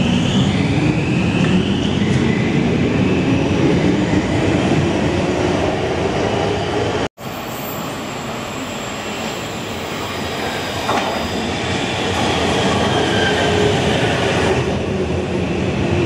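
Helsinki Metro train pulling out of a station, its motor whine rising in pitch as it gathers speed. After a break about seven seconds in, another metro train runs in along the platform with steady wheel-on-rail noise that grows louder towards the end.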